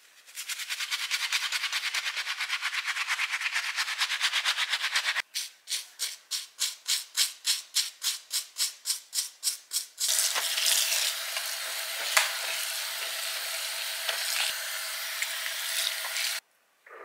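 Toothbrush scrubbing the soapy lace of a wet human-hair wig: rapid strokes for about five seconds, then slower strokes about four a second. About ten seconds in, a kitchen faucet runs steadily into the soapy stainless-steel sink, then cuts off suddenly near the end.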